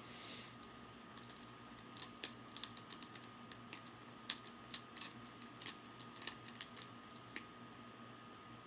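Irregular light clicks and taps, about two dozen over several seconds and stopping about three-quarters of the way through, over a faint steady hum.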